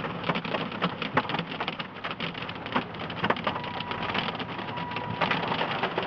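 Hailstones pelting a vehicle with heavy rain: a dense, irregular clatter of sharp impacts, some much louder than the rest, over a steady rush.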